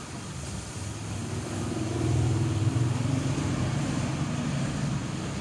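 A motor vehicle's engine passing by, its low hum swelling about two seconds in and then easing off.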